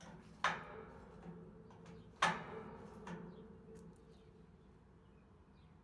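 Metal clanks from a mechanical dock leveler's cross-traffic support-leg mechanism being worked by hand: two sharp clanks about two seconds apart and a lighter one after, each ringing briefly in the steel.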